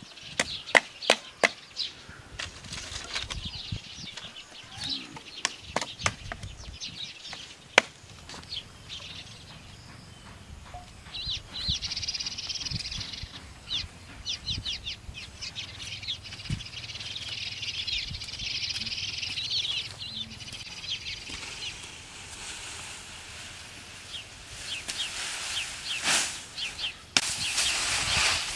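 Bamboo stakes being knocked into a bamboo picket fence with a piece of wood: sharp, irregular taps and knocks through the first eight seconds or so. Softer rustling follows, and near the end a bundle of cut green grass rustles more loudly.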